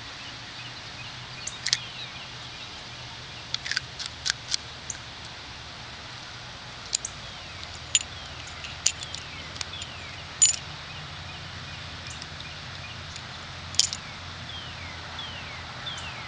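Scattered sharp metallic clicks and taps from a small .38 Special revolver being handled, the loudest about halfway through, over a steady low hum. Short falling bird chirps sound now and then.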